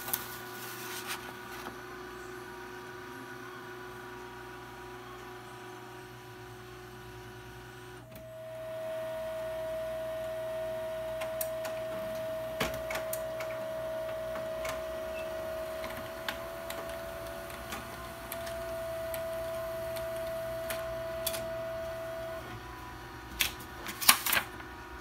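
HP Color LaserJet laser printer running with a steady mechanical hum. About eight seconds in it grows louder and a steady whine sets in, holding until about 22 seconds, with scattered light clicks. A few sharp clicks come near the end.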